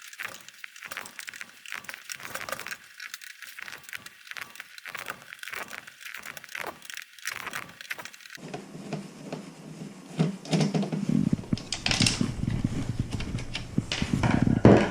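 Small Phillips screws being backed out of a plastic HVAC control panel with a screwdriver: a run of quick light clicks and rattles. The sound turns fuller and busier about eight seconds in.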